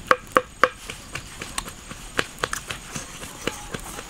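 Sharp knocks with a short hollow ring: three in quick succession in the first second, then scattered single clicks.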